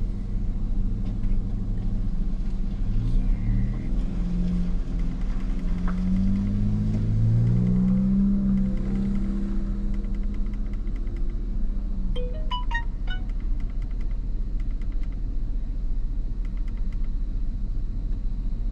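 Chevrolet 4.8 L V8 idling with a steady low rumble while it carries a slight misfire. For several seconds in the middle, a pitched sound glides up and then back down over the idle, and a few short high tones follow.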